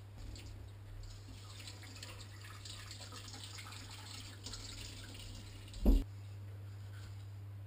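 Wet mackerel being handled in a stainless steel sink: faint drips, wet slithers and light taps of fish against the steel. About six seconds in comes a single loud thump, followed by a steady low hum.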